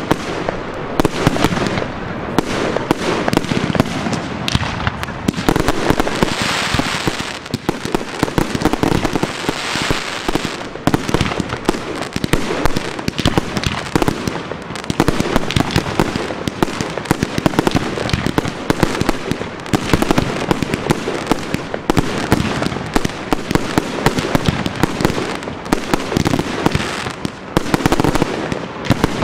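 Professional fireworks display: aerial shells bursting in quick succession, a dense, unbroken run of bangs and pops.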